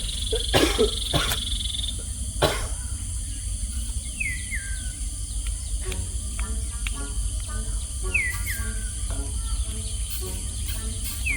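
Forest insects buzzing steadily at a high pitch, with a bird repeating a falling whistled call three times and a quick pulsing animal call in the second half. A few sharp knocks come in the first few seconds.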